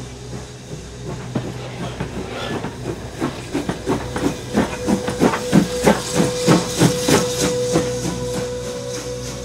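Steam locomotive working past, its exhaust beats chuffing about three times a second. The beats build up to a peak partway through and then ease off.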